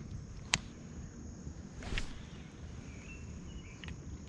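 Quiet outdoor ambience at a pond, with one sharp click about half a second in and a louder knock or swish about two seconds in. A faint high bird note comes near three seconds.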